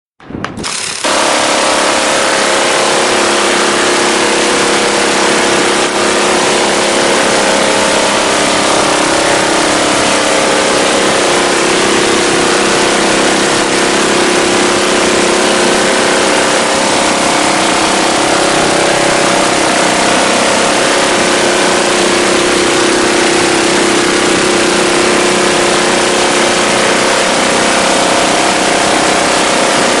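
Minigun firing in one long continuous stream. The shots come so fast they merge into a loud, steady buzz whose pitch wavers slightly. It starts abruptly about a second in.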